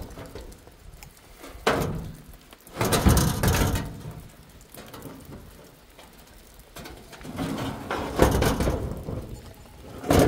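Rain falling, broken by several loud bursts of scraping and rattling as a rusty metal sheet is shifted over a cinder-block wall, the biggest about three seconds in and again from about seven seconds in.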